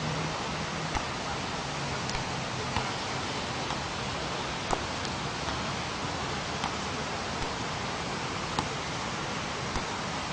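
Steady rush of surf and wind at the beach, with light taps about once a second as a football is kicked up.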